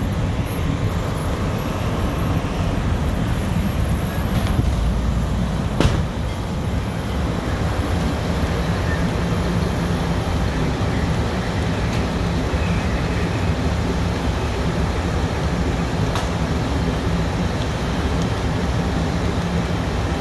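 Fire engine's diesel engine running steadily, a constant low rumble, with a few short sharp knocks, the loudest about six seconds in.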